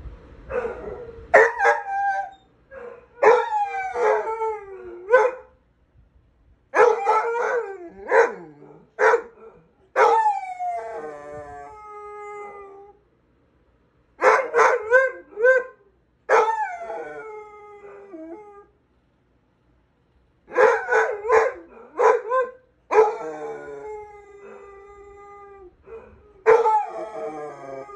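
Basset hound howling in about four bouts of wavering, pitch-bending howls with short pauses between them, some bouts ending in a long held note that fades.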